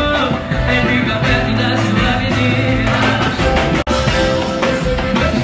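Live band music from a concert stage, with percussion and keyboards playing; the sound drops out for a split second about four seconds in.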